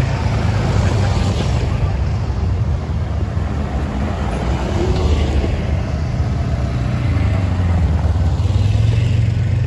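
A line of side-by-side UTVs and four-wheeler ATVs driving slowly past one after another, their engines giving a steady low drone.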